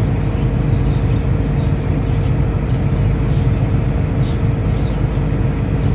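Excavator diesel engine idling steadily at about 1,000 rpm, heard from the cab, with a constant low drone and a faint steady whine above it. The engine is being left to idle so an overheated coolant temperature, now 95–96 °C, can come down before shutdown.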